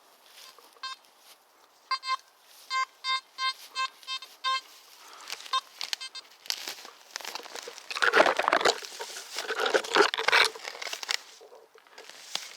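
Nokta Makro Simplex Plus metal detector giving a run of about eight short beeps as the coil passes over a buried target. Then several seconds of loud rustling and scraping through forest ground litter.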